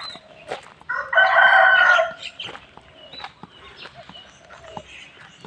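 One loud animal call, about a second long, starting about a second in, with faint scattered small sounds around it.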